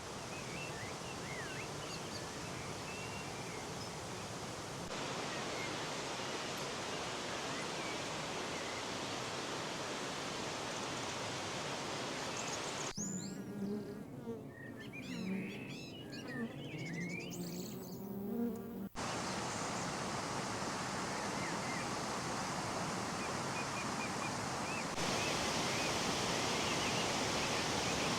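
Edited series of outdoor ambience clips: a steady rush of flowing water with faint bird chirps over it. For several seconds in the middle the water sound drops away and birds chirp and sing closer and more busily, then the steady water sound returns, growing a little louder near the end.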